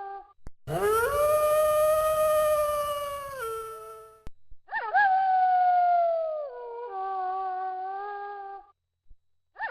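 Wolf howling: long, clear howls, each swooping up at the start, holding a steady pitch for a few seconds, then sliding down. Three howls follow one another, with a short silence near the end before another begins.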